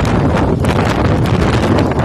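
Strong wind buffeting the microphone: a loud, continuous low rumble with brief gusts flaring up through it.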